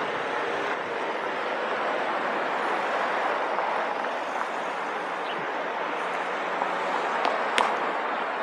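City street ambience: a steady wash of passing traffic noise, with one sharp click about seven and a half seconds in.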